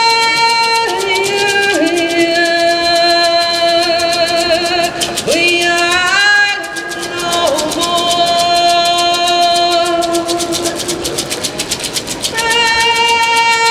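A woman singing an Indigenous song into a microphone, holding long notes that step down in pitch with a brief glide upward in the middle, over a steady hand-drum beat.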